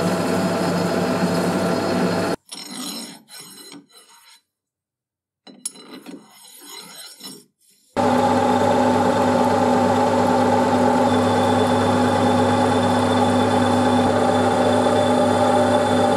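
Metal lathe running with a steady motor-and-gear drone made of several held tones. For the first two seconds a small abrasive is held by hand against the spinning steel threads; after a quieter, uneven stretch with a second of silence, the lathe runs again from about halfway, turning a steel rod with a cutting tool, and a faint high whine joins in a few seconds later.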